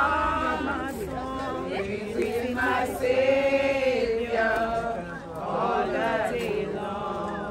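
A crowd singing together, men's and women's voices, with long held notes.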